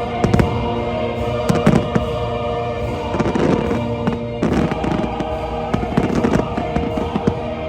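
Aerial fireworks bursting and crackling in quick clusters over the show's orchestral music, with repeated sharp bangs throughout.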